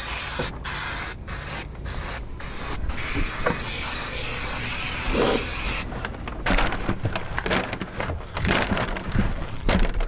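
Aerosol spray adhesive hissing from a can onto a boat floor, in several short bursts and then one longer spray that stops about six seconds in. After that come rustling and light knocks.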